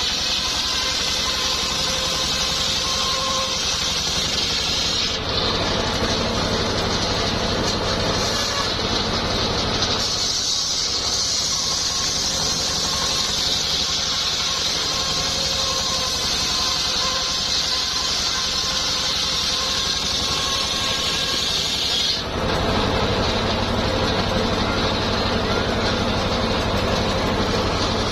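Engine-driven home-built circular sawmill running continuously, its blade cutting a coconut-palm log: a steady engine hum under a high hiss of the blade in the wood, the balance shifting abruptly a few times as the cut goes on.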